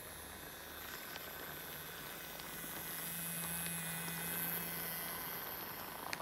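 Battery-powered toy train's small electric motor whirring steadily as it pulls wooden Shinkansen N700 cars along plastic track, with a few light clicks from the wheels and track. It grows louder in the middle as the train passes close by.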